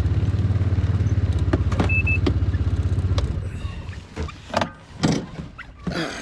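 Side-by-side UTV engine running steadily with a low, even pulse, then dying away about three seconds in as the machine stops. A few short knocks follow.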